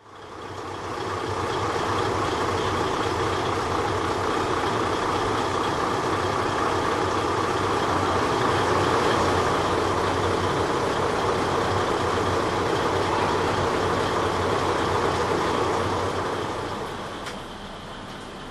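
KiHa 20 diesel railcar's DMH17 diesel engine running with steady wheel and rail noise, easing off about three-quarters of the way through.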